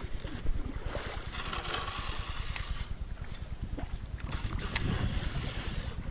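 Wind buffeting the microphone on a drifting canoe, with water swishing and lapping against the hull in two stretches of hiss.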